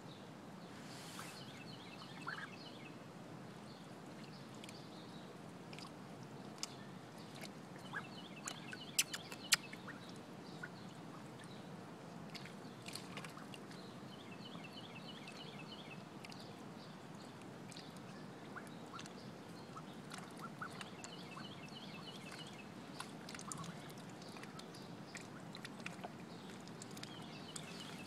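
Blue Swedish ducks dabbling in shallow muddy water: scattered small splashes and bill clicks over a steady low trickle of water, with a few sharper clicks about nine seconds in.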